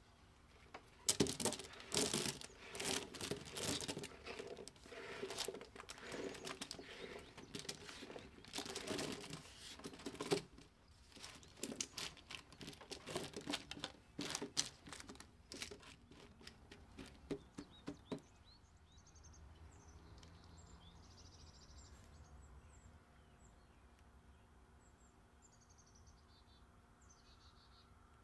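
Cubed raw eggplant tumbling onto a parchment-lined baking tray and being spread by hand: a dense run of soft knocks and paper crinkling that stops about 18 seconds in. After that, faint high bird chirps over a quiet background.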